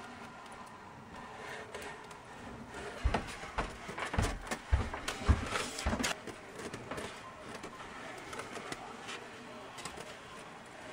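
Handling noise from a styrofoam sheet being cut with a pen-style hot-wire foam cutter: a cluster of knocks and crackly rubbing between about three and six seconds in, with a faint hiss around them.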